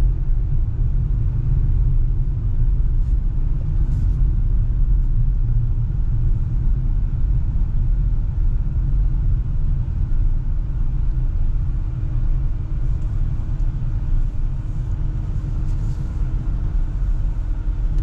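Steady low rumble of a car's engine and tyres while driving, heard from inside the cabin.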